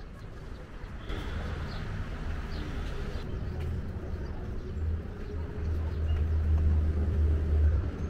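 A low, uneven rumble that swells louder over the last three seconds, with a few faint bird chirps in the first few seconds.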